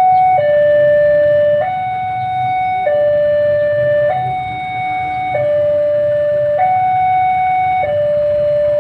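Electronic two-tone level-crossing warning alarm, switching evenly between a low and a high tone about every second and a quarter, over a low rumble.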